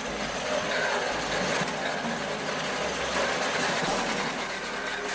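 Small tractor's engine running steadily with its rear-mounted firewood saw turning over but not cutting.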